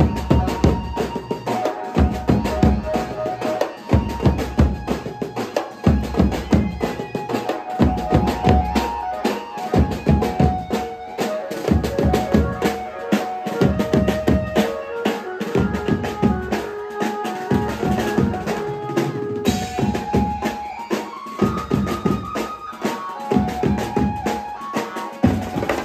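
Live banjo-party band music: an electronic keyboard plays a melody over band drums beaten in a fast dance rhythm, with regular heavy low beats.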